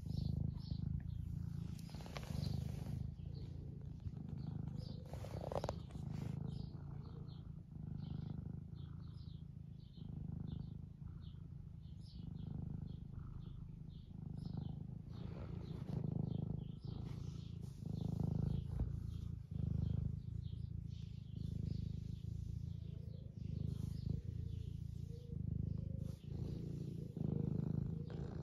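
Domestic cat purring steadily close to the microphone, the purr swelling and easing with each breath about every two seconds.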